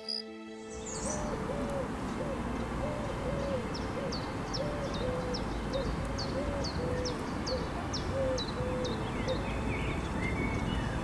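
Birds calling: a low hooting note repeated about twice a second, with a high, short falling chirp repeated alongside, over a steady outdoor hiss. The hooting stops about nine seconds in.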